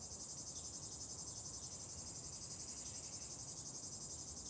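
A steady, high-pitched chorus of insects chirring, pulsing several times a second.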